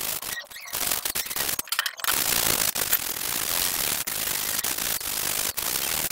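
80-grit sandpaper rubbed by hand over hardened body filler on a metal motorcycle carrier frame: a steady rasping scrape with two brief breaks between strokes in the first two seconds. The coarse paper is knocking down the roughness of the first coat of filler.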